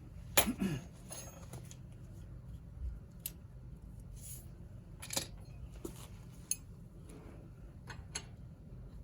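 Scattered metallic clinks and taps of hand tools and metal suspension parts being handled, the sharpest pair about half a second in and single clicks spread through the rest.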